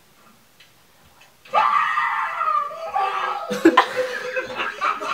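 A person screams loudly and suddenly, starting about a second and a half in, followed by laughter.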